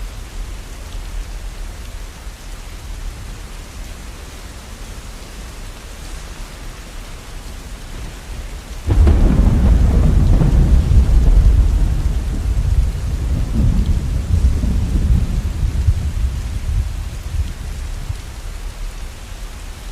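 Steady rainfall, with thunder breaking suddenly about halfway through and rolling on as a loud low rumble for several seconds before dying away.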